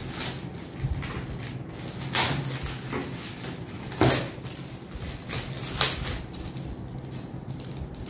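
Clear plastic wrapping crinkling and rustling as it is torn open and pulled off a framed photo, with several sharper crackles a second or two apart.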